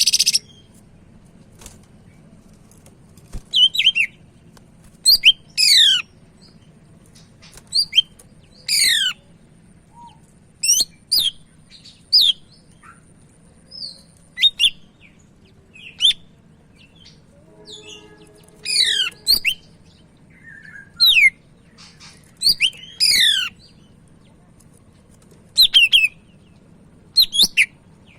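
Green leafbird (cucak ijo) calling in short bursts of shrill, rapidly falling whistled notes, every second or two with brief pauses.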